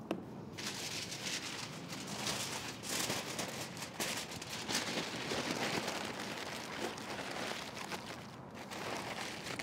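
Aluminium foil crinkling and crackling steadily as hands fold and crimp it tightly around a rack of pork spare ribs, wrapping them partway through the cook.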